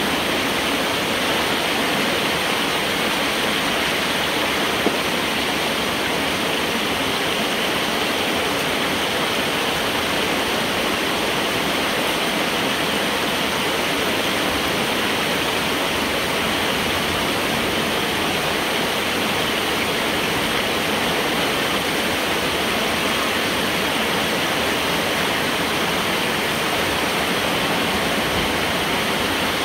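Water rushing and splashing steadily through a breach in a beaver dam inside a large corrugated metal culvert, as the dam is pulled apart by hand to drain the flooded road.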